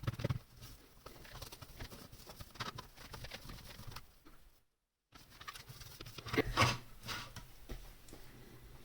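Small plastic Commodore 64 keyboard parts being handled and scrubbed clean: scattered light clicks and rubbing, with a couple of louder scrubbing strokes after a brief dropout about halfway through.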